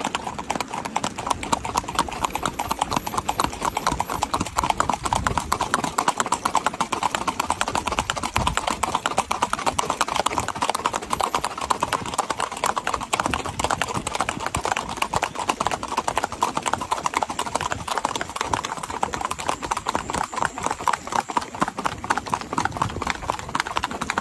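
A horse's hooves clip-clopping on a paved road in a fast, even beat as it is ridden along.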